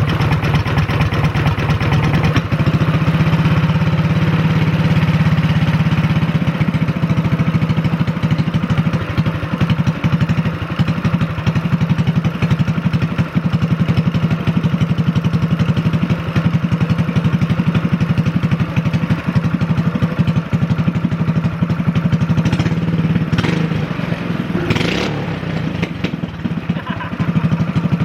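Mini bike's small engine running steadily at a fast idle through its lengthened home-made exhaust, with a couple of short clatters near the end.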